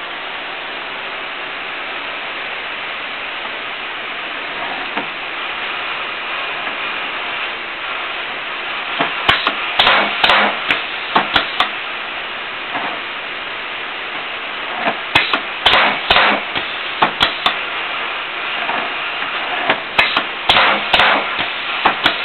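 LENZFREE lens deblocker and its doors: a steady hiss, broken by three clusters of sharp, rapid knocks, about a third of the way in, around two-thirds of the way in, and near the end.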